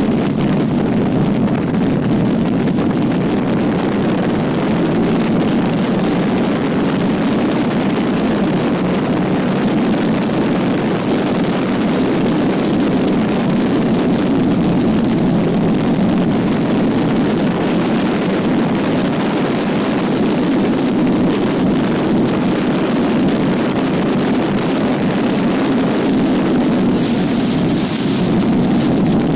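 Steady wind roar buffeting the camera microphone of a motorcycle at highway speed, with the Triumph Trident 660's three-cylinder engine running at a constant cruise underneath. The hiss grows a little brighter near the end.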